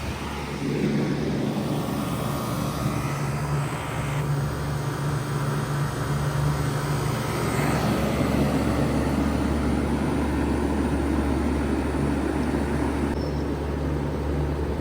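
1995 Bard 3-ton wall-hung heat pump running steadily in cooling mode, with an even low hum.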